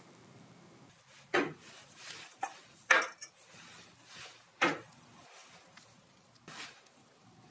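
Small plastic coating bottles being set down on a steel workbench: four sharp knocks spread over several seconds, with a few lighter clicks between.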